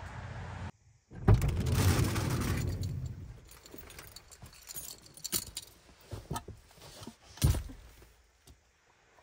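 Someone climbing into a minivan with a backpack: bag and clothing rustling, then small metal clips jingling and light knocks, with one heavier thump near the end.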